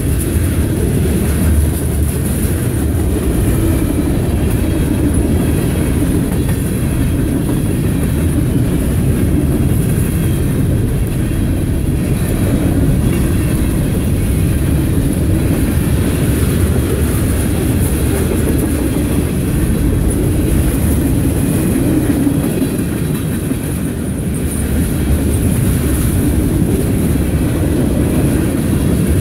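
Freight cars (covered hoppers, then tank cars) rolling past close by: a steady, loud rumble of steel wheels on the rails.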